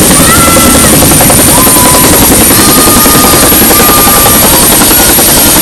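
A Marine Corps UH-1 Huey helicopter flying low on its approach to land, its rotor chop steady and very loud.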